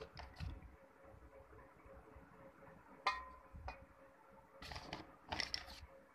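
Scattered light clicks and one crisp metallic tap about three seconds in, with a brief ring, from handling around an aluminium pot of water that holds soaking slate pencils. Two short rustling noises follow near the end.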